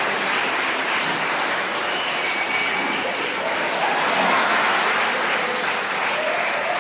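Audience clapping steadily, sustained applause at the end of a sung duet.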